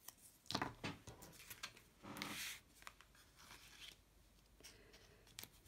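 Faint handling noises of double-sided foam tape and card: short rustles and clicks, with a longer scratchy peeling or tearing sound about two seconds in.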